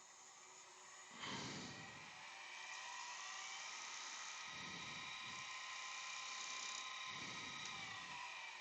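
Wood lathe starting up about a second in and then running steadily with a high whine.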